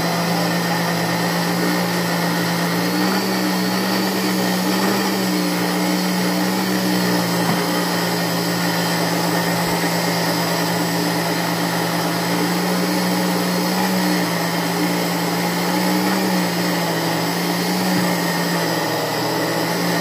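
Mallory kitchen blender motor running steadily, blending a liquid batter while flour is added through the lid a little at a time. Its hum steps slightly up and down in pitch a few times as the load changes.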